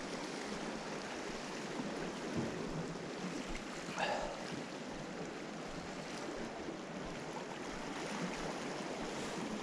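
Steady rushing wash of sea surf breaking along a rocky shore, with a brief faint sound about four seconds in.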